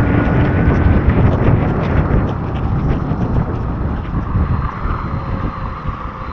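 Wind rushing over the microphone of an electric motorcycle ridden through heavy rain, with spray and raindrops off the wet road. The rush eases over the last few seconds as the bike slows.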